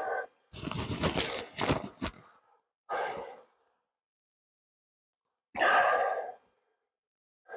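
A man's heavy breaths and sighs, a few separate exhales with gaps of silence between them, the loudest a noisy rush in the first two seconds.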